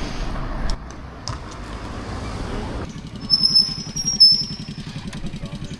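A low rumble, then, after an abrupt change about three seconds in, a small engine idling with a fast, even putter. A few high, thin whistling tones sound over it for a second or so.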